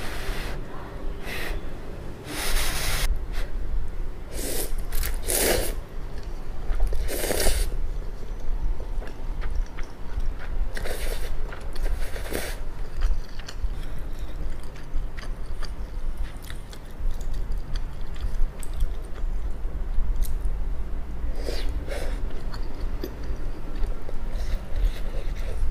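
Close-miked slurping and chewing of spicy instant ramyun noodles: several loud slurps, most in the first half, with wet chewing and small mouth clicks between them.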